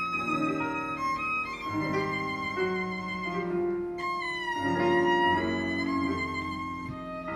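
Solo violin playing a slow, romantic cadenza in long held notes, with a downward slide about four seconds in.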